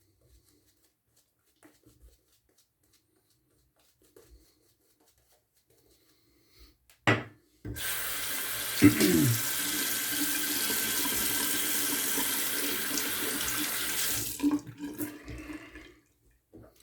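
A short sharp knock, then a tap running steadily into a sink for about six seconds before it is shut off, followed by faint rustling.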